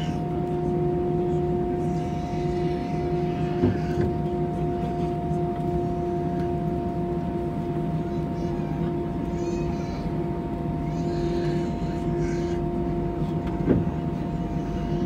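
Airliner cabin noise: engines and air systems humming steadily, several constant tones over a low rumble, with two short knocks and faint voices in the background.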